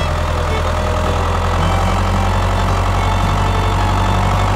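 Tractor engine running steadily at an even pace, a deep drone.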